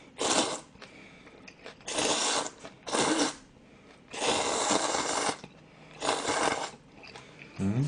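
Jjamppong noodles slurped from the bowl with chopsticks, five separate slurps with short pauses between them, the longest about a second long.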